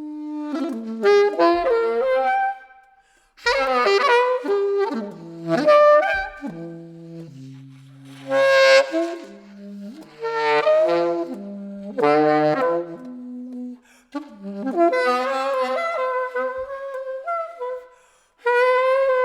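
Solo saxophone playing in separate phrases of quick runs and held notes, with short pauses between them and a few low held notes in the middle.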